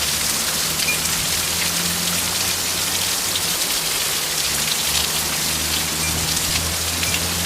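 Heavy rain falling steadily: a dense, even hiss of drops with scattered individual drop ticks, over a faint low steady hum.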